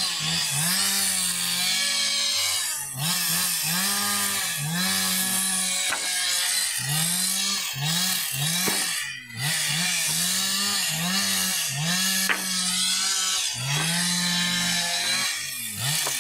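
Two-stroke chainsaw running hard, its pitch sagging and climbing back again and again as it bites into and frees from wood, with a short drop about nine seconds in.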